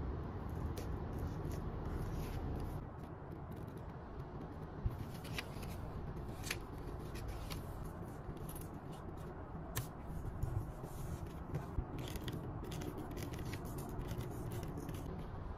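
Paper and stationery handled on a desk: stickers, card and a sticky-note pad rustling and scraping, with scattered sharp clicks and taps from metal tweezers and plastic tools, over a low steady hum.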